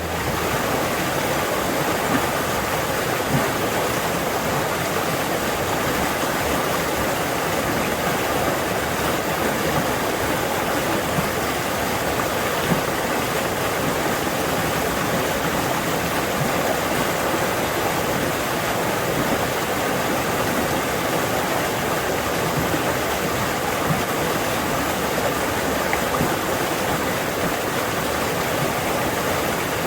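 Fast-flowing forest stream rushing steadily over rocks, a loud, even water noise.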